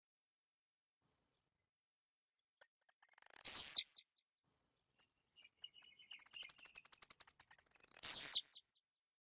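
Blue-black grassquit (tiziu) singing: after a pause, a few high ticks lead into a loud, falling buzzy 'tiziu' note about three seconds in, then a fast run of high ticks, and a second falling buzzy note near the end.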